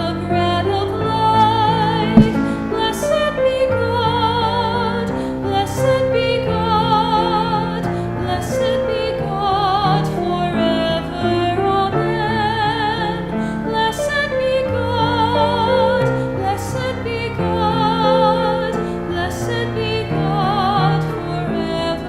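Offertory hymn: a woman singing held, wavering notes with vibrato over instrumental accompaniment. There is a single sharp click about two seconds in.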